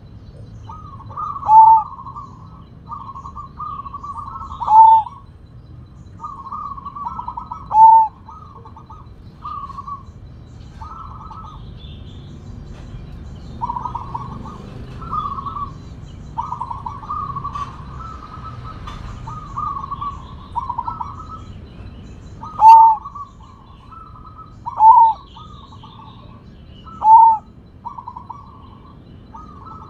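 Sumbawa zebra dove (perkutut) singing its loud-voiced song: repeated phrases of rolling coos, most of them ending in a short, much louder final note. There are six such loud end notes, three in the first eight seconds and three in the last eight, with a run of softer coo phrases between.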